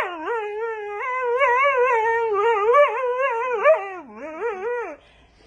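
A dog making a long, wavering howling whine, its pitch sliding up and down in wobbles. It drops lower about four seconds in and stops about five seconds in.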